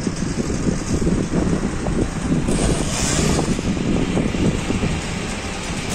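A fire engine's diesel engine idling with a steady low rumble, mixed with wind buffeting the microphone.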